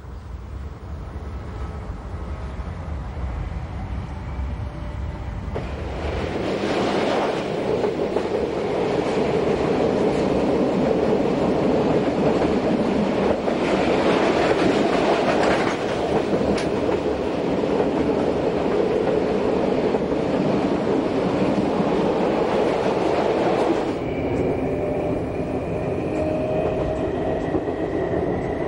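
Electric train running along the track. The noise grows louder about six seconds in, and a couple of steady whining tones come in near the end.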